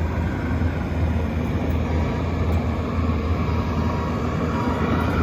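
Bobcat T740 compact track loader's diesel engine running steadily with a low, even drone.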